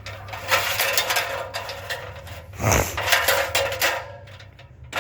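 Work on a metal roof: a run of clicks, knocks and light metallic clatter, with a heavier thump about two and a half seconds in.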